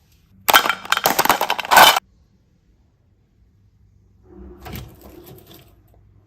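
Loud, dense crackling and crinkling for about a second and a half, which starts and stops abruptly. A fainter, shorter rustle follows about two seconds later.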